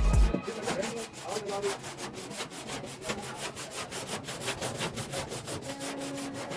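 Hand sanding or rubbing: quick, even back-and-forth strokes, about four to five a second.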